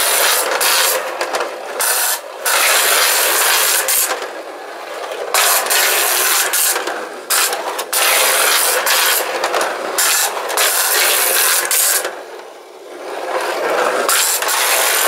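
Two clockwork tin-plate cars of a Technofix Coney Island roller coaster toy running around its tin-plate track, their wind-up mechanisms driving them along. The noise is loud and harsh, broken by many short gaps, and fades briefly about four seconds in and again about twelve seconds in.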